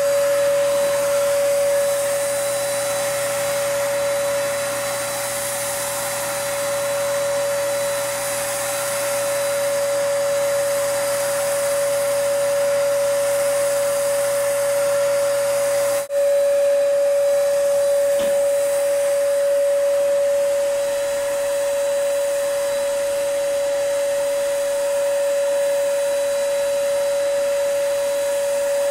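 HVLP turbine paint sprayer (a DipSprayer 3500) running steadily while spraying Plasti Dip: a constant whine over a rush of air. The sound cuts out for an instant about halfway through, then carries on unchanged.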